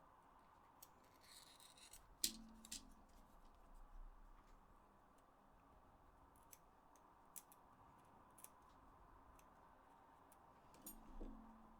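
Near silence broken by scattered faint clicks and taps from small plastic and electronic parts being handled. The strongest click comes about two seconds in and a few more come near the end, over a faint steady hum.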